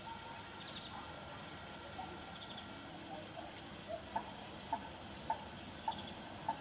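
Bird calls over quiet waterside ambience. A short note repeats evenly, a little under twice a second, from about four seconds in, and a faint high trill comes every couple of seconds.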